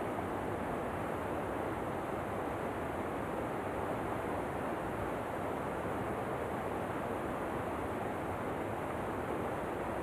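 Steady, unchanging rush of falling water from a waterfall, strongest in the middle and lower range.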